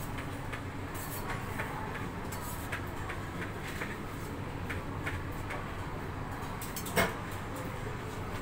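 Steady low background hum with scattered light clicks and clinks of things being handled on a counter, and one sharp knock about seven seconds in.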